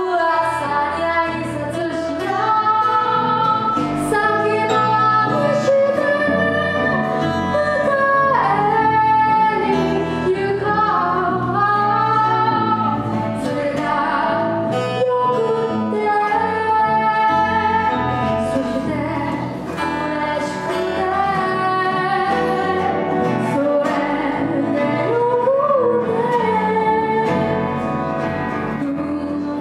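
Live acoustic song: a woman sings a melody into a microphone, accompanied by acoustic guitar and bass.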